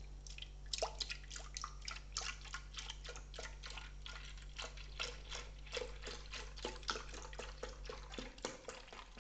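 Cold milk poured in a thin stream into a blender jar, a quick steady patter of small splashes as the liquid hits the milk already in the jar.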